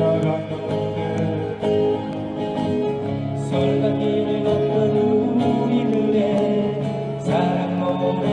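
Background music: a song with acoustic guitar and other instruments playing, no lyrics sung in this stretch.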